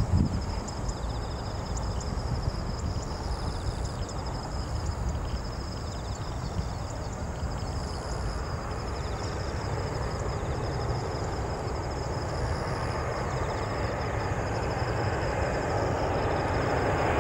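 CFM56-7B jet engines of a Boeing 737-800 on final approach, a rushing jet noise that grows steadily louder in the second half as the plane nears. A faint, high, pulsing chirp runs through the first half.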